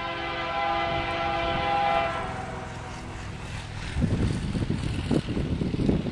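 Diesel locomotive's air horn sounding one long chord, fading out after about two and a half seconds. About four seconds in, an uneven low rumble with gusty swings in loudness takes over.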